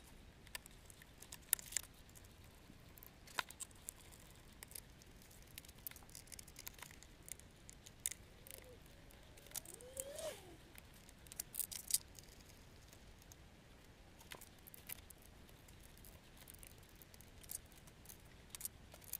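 Scattered small clicks and taps of hard plastic as the A-Bike folding bicycle's black plastic chain-case cover is handled and pressed into place, with a short squeak near the middle.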